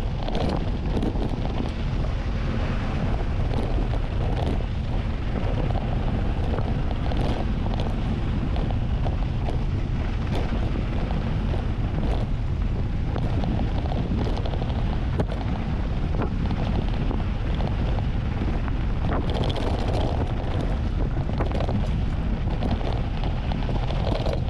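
Wind buffeting the camera's microphone during a fast mountain-bike descent on a dirt road, with scattered small clicks and rattles from the bike.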